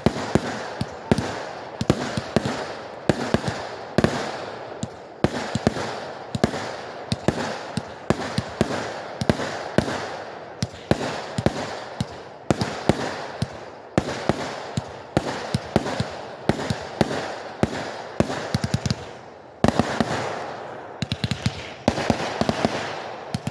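Fireworks bursting in a steady string of sharp bangs, one or two a second, with crackling between them. Near the end the bangs come fast in a dense volley.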